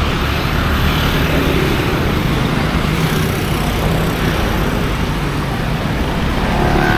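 Steady street and traffic noise, an even rushing hum with no single event standing out.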